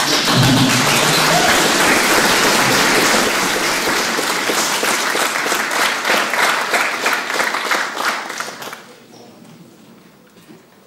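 Audience applauding at the end of a talk, a dense steady patter of clapping that dies away about nine seconds in.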